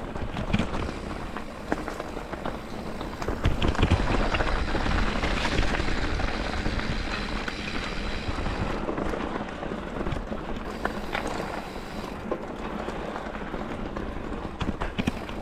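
Mountain bike rolling down a dirt trail: steady tyre and wind noise with frequent rattles and clicks from the bike, loudest a few seconds in, then easing off.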